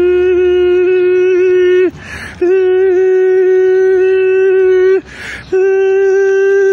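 A man's voice holding one long, steady, high-pitched hummed note. It breaks twice for a quick, noisy in-breath, about two seconds and five seconds in, then resumes at the same pitch.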